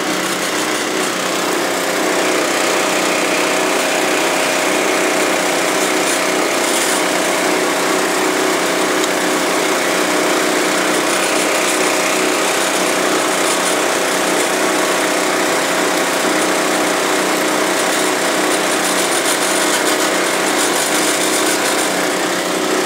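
Diesel Kawasaki Mule side-by-side and the small gasoline engine driving its rear sprayer's pump, both running steadily as the vehicle drives slowly across a field.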